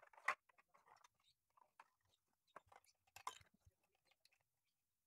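Faint clicks and crackly rustles of 3D-printed plastic model-aircraft parts being handled and fitted together. Two louder crackles come about a third of a second in and just after three seconds in.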